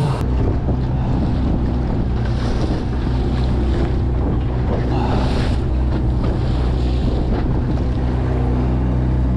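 Outboard motor of an aluminium fishing boat running steadily at trolling pace, with water rushing and churning along the hull and wind on the microphone.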